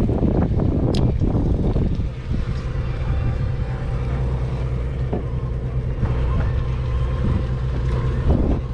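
Party boat's engine running steadily, a constant low hum, with wind rushing over the microphone for the first couple of seconds.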